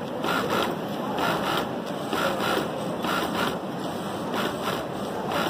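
Juki industrial sewing machine stitching in short runs, about one burst a second, over a steady background hum.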